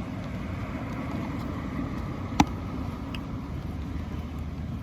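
Steady low outdoor rumble, like distant road traffic, with a single sharp click about halfway through.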